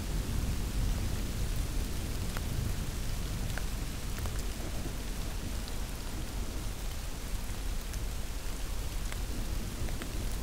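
Steady rain falling, with scattered single drops ticking and a low rumble underneath.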